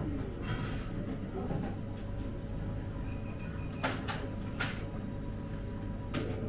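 Restaurant room noise: a steady low hum with a few sharp clinks of tableware, about four seconds in, again soon after, and near the end. A brief faint high tone sounds about three seconds in.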